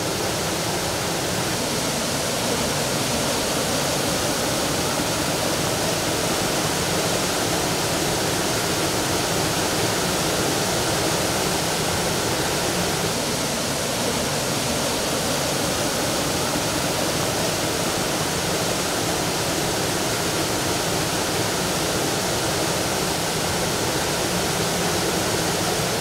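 Waterfall cascading over boulders: a steady, unbroken rush of falling water.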